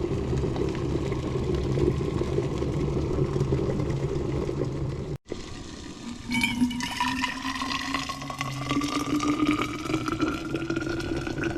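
Water running steadily, then after a cut, liquid poured into a container, its tone rising slowly as the container fills.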